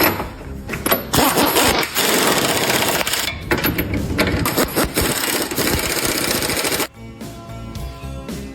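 A power tool runs in one loud burst of about five seconds and then stops abruptly, over background music.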